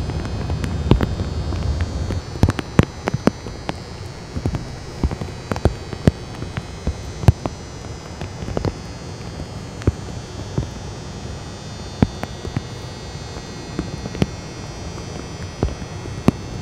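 A steady low hum with scattered, irregular sharp clicks and ticks, about one or two a second.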